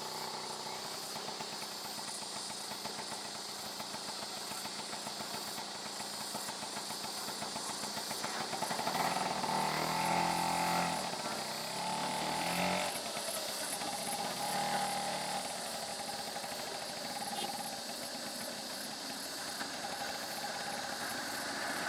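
A motor vehicle's engine running, getting louder for a few seconds around the middle.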